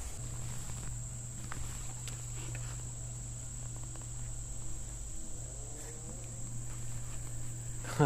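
Insects trilling in a steady, high-pitched drone, over a low steady rumble.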